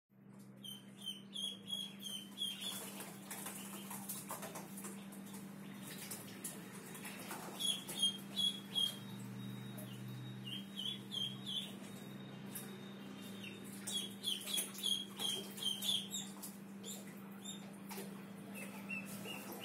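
White Pekin ducklings peeping: repeated runs of short, high calls that come in bursts several times, over a steady low hum.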